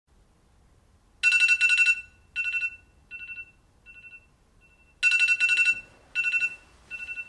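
Phone alarm going off with bursts of rapid high beeping, each burst fainter than the last. The sequence starts about a second in and starts over loud about four seconds later.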